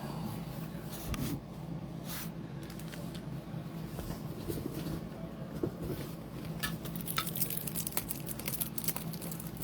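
Light rustling, crinkling and clicking of things being handled on a table, growing busier over the last few seconds, over a steady low hum.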